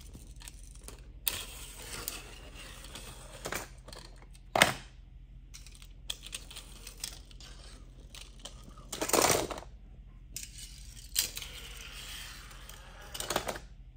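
Small toy cars being handled on a plastic ramp track: a few sharp clacks as they are set down and knock against the track, with stretches of their wheels rolling along it between.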